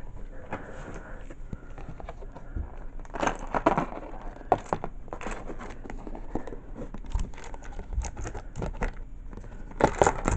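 Handling noise from a stiff white card and small acrylic floss drops: rustling and scattered small clicks, with the busiest bursts about three seconds in and again near the end.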